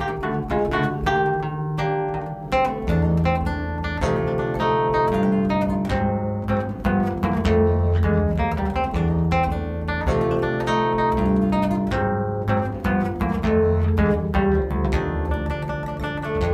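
Nylon-string guitar played solo fingerstyle: a plucked melody over a moving bass line.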